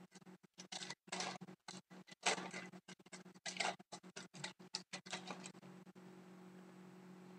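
Hockey trading cards being handled and flipped through, a run of short papery rustles and slides for about five seconds that then stops.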